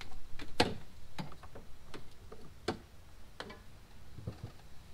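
Irregular hard clicks and light knocks from a windshield wiper arm being handled and fitted onto its pivot at the cowl, with the sharpest about half a second in and again near three seconds.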